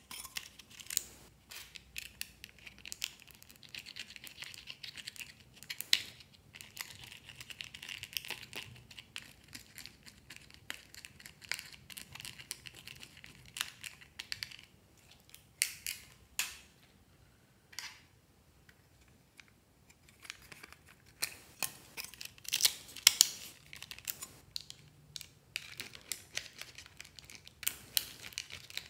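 A thin pick scraping and digging pressed eyeshadow out of a small plastic toy makeup palette: a run of small scratches and light clicks, with a quieter pause about two-thirds of the way through.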